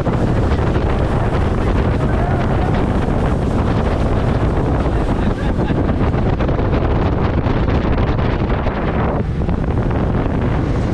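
Strong wind buffeting the microphone: a loud, steady rushing roar with a heavy low rumble.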